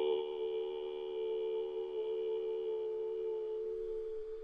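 A long, held chant of the qigong sound "Tong", one steady tone that eases slightly after the start and holds until it stops at the very end.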